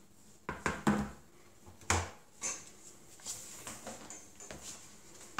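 Handling knocks and clicks as an iPad 2 is moved and laid down on a wooden tabletop: several sharp taps in the first two seconds, the loudest about two seconds in, then a few softer ones.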